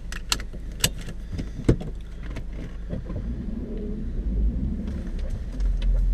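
Vehicle engine idling, heard from inside the cabin, with a few sharp clicks and knocks in the first two seconds. The engine grows louder near the end as the vehicle begins to pull away.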